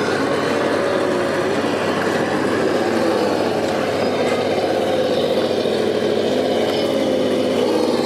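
RC scale crawler's electric motor and gear drive whining as it crawls slowly over rocks. The pitch wavers up and down with the throttle, over a steady background rush.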